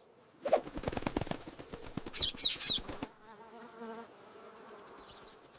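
A burst of rapid fluttering flaps from birds, with a few short high chirps about two seconds in, then a softer buzzing drone.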